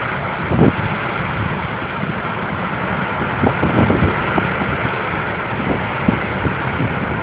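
Hurricane-force wind rushing through trees in a steady noisy rush, with irregular low thumps of the gusts buffeting the microphone.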